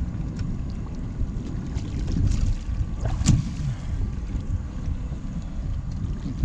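Wind buffeting the microphone over water sloshing against a boat hull, a steady rough rumble, with a single short sharp sound about three seconds in.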